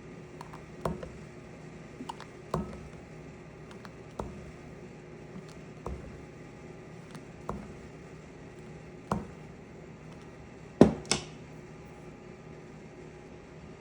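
Scattered light clicks and taps, about one every second or two, from objects being handled, with two louder knocks in quick succession near the end, over a steady low hum.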